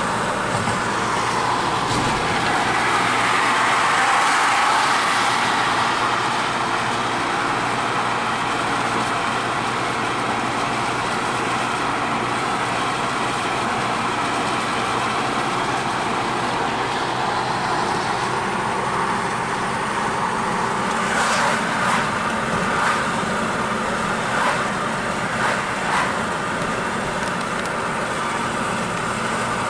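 Car driving along a road: steady tyre and engine noise, with a few short knocks or clicks in the last several seconds.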